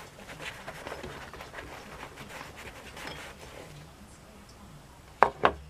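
Phoenix HP22 .22 pistol being handled: faint rustling, then two sharp clicks close together near the end.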